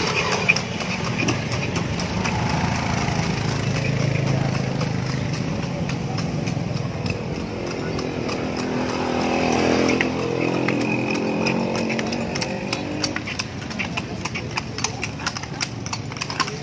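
Hooves of the horse pulling a tartanilla, a horse-drawn carriage, clip-clopping on the paved street in an irregular run of sharp knocks. A steady engine hum from passing motor traffic runs under it and grows louder in the middle.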